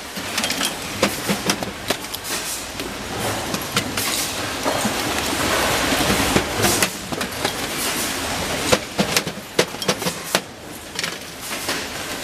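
Factory clatter from a concealed-hinge assembly line: metal hinge parts clinking and knocking irregularly, many sharp clicks a second, over a steady machinery noise.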